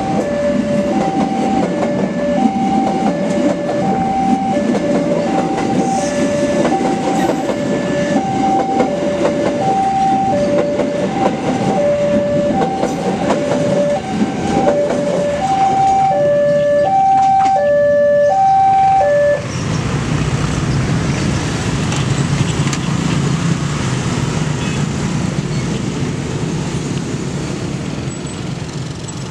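A railway level-crossing alarm repeats a two-tone chime, alternating high and low, while the cars of a passing parcel train rumble and clack over the rails. Both cut off suddenly about 19 seconds in. After that, a crowd of motorcycle engines runs as traffic crosses the tracks, fading toward the end.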